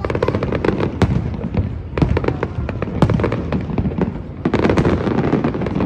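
Fireworks display: aerial shells bursting in a steady barrage of bangs and dense crackling, with louder bangs roughly once a second.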